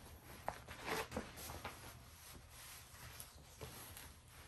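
Faint rustling and crinkling of a rolled diamond painting canvas and its clear plastic cover film being unrolled and spread flat by hand, with a few sharper crinkles in the first two seconds.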